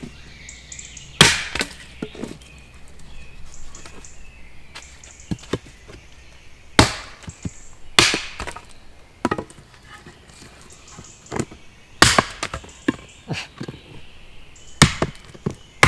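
Axe chopping dead wood: sharp single blows at irregular intervals a few seconds apart. The blows bounce rather than breaking the wood clean, because the stump is rotten and moldy.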